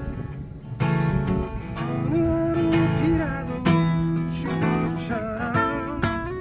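Music: an acoustic guitar strummed in a steady rhythm, with a wavering melody line over it.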